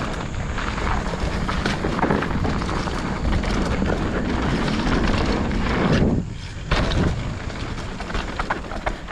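Mountain bike riding fast down a dirt trail: wind rushing over the microphone, with the tyres rumbling over the ground and the bike rattling. About six seconds in the noise drops briefly for roughly half a second, then picks up again.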